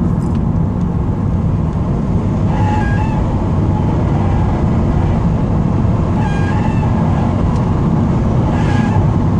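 2008 Subaru WRX accelerating in gear, its engine and road noise steady, while a high-pitched squeal cuts in briefly three times. The squeal comes only under acceleration at around 3,500 rpm, not when revving while parked, and its cause is unknown.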